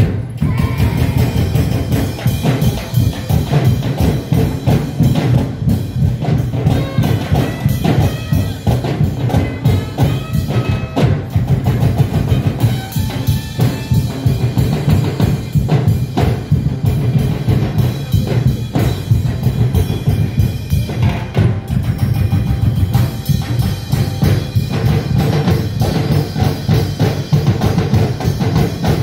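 Drum-led music: loud, steady, busy drumming with a heavy low drum beat and some pitched tones above it.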